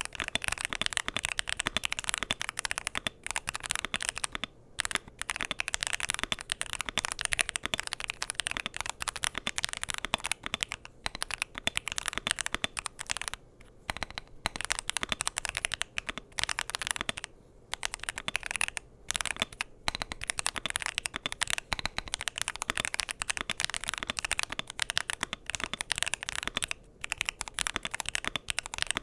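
Fast continuous typing on an Epomaker Magcore 87 aluminium-cased keyboard with Kailh Box Inductive switches, FR4 plate and Cherry-profile PBT double-shot keycaps: a dense stream of keystroke clacks, broken by a few short pauses.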